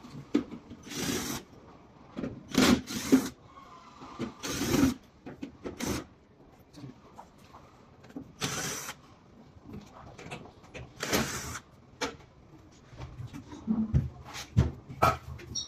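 Metal panels and parts of an electric fireplace being handled during disassembly: irregular scrapes of parts sliding against each other, with clicks and knocks in between.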